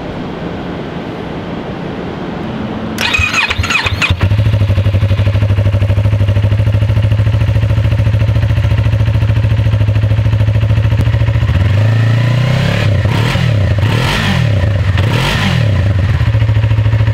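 Yamaha R3's parallel-twin engine through its stock exhaust: the starter cranks it about three seconds in, it catches and settles into a steady idle, then it is revved up and back down three times in quick succession near the end before dropping back to idle.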